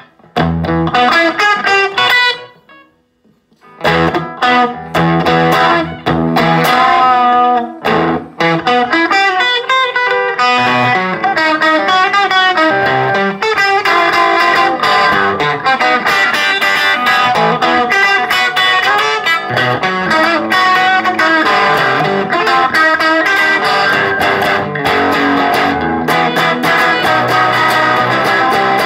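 Squier electric guitar played in quick runs of single notes; the playing stops briefly about two and a half seconds in, then resumes and goes on without a break.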